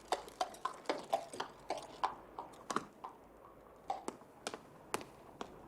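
Horse hooves clopping on cobblestones: sharp, uneven clacks, about two or three a second.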